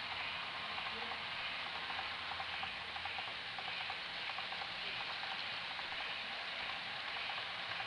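HO scale model freight cars rolling past on track, their wheels clicking rapidly over the rail joints above a steady hiss.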